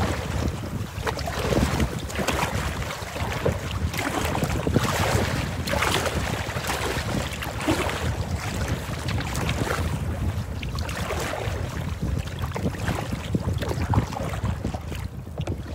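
Strong wind blowing across the microphone without a break, with choppy lake water splashing and slapping against a kayak's hull in irregular surges every few seconds.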